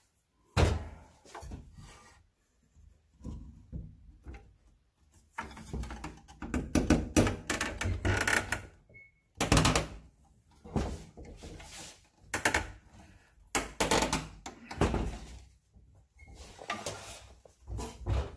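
Irregular wooden knocks and thuds as a new wooden rocker is worked onto the glued leg pegs of a rocking chair, with handling noise between the strikes.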